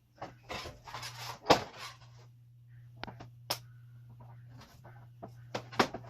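Hard objects being handled: a rattling clatter for about two seconds, then several separate sharp clicks and knocks, the loudest near the end, over a steady low hum.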